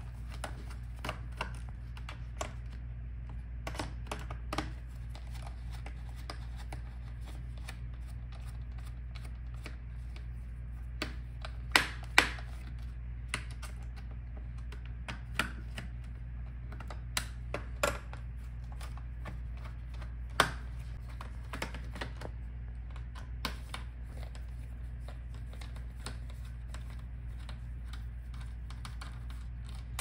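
Scattered sharp clicks and taps of a precision screwdriver loosening the bottom-case screws of a laptop, its tip and the small screws knocking on the hard case, over a steady low hum.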